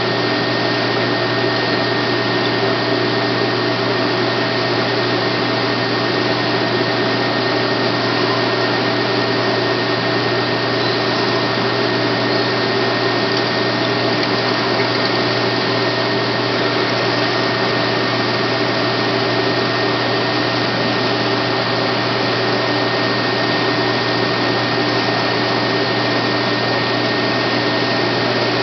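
Bolton Tools BT0919 9 x 19 inch bench metal lathe running at a steady speed: an even mechanical whine with several steady tones over a low hum.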